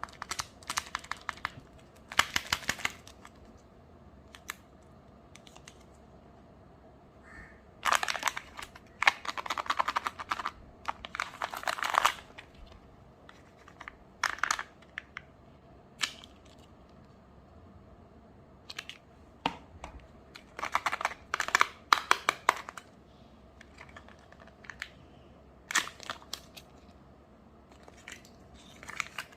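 Foil wrapper of a Kinder Surprise chocolate egg being crinkled and torn open by hand. The crackling comes in bursts of a second or two, with quiet pauses between.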